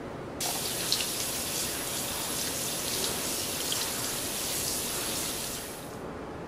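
Kitchen faucet running: water comes on abruptly about half a second in as a steady splashing hiss, then is shut off near the end.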